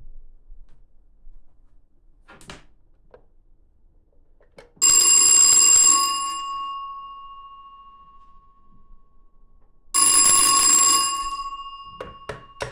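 Western Electric telephone's mechanical bell ringing in two bursts about five seconds apart, each struck rapidly for about a second and then left ringing as the gongs die away. A few light clicks come before the first burst and after the second.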